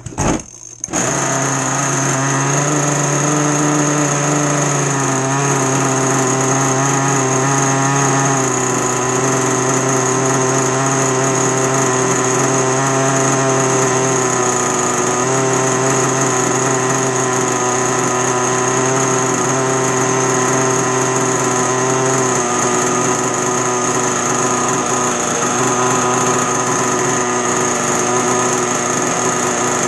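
Small two-stroke gasoline RC boat engine firing up about a second in, then idling steadily on the bench, its pitch shifting slightly a few times.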